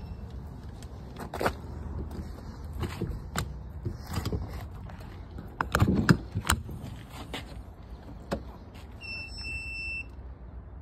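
Scattered clicks and knocks, loudest in a quick cluster about six seconds in, over a low steady rumble. A short high steady tone is held for about a second near the end.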